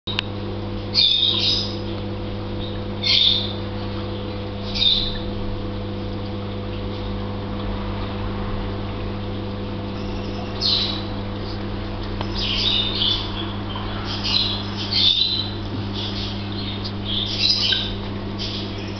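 A bird chirping in short bursts every second or few seconds, over a steady low hum from the reef aquarium's pumps.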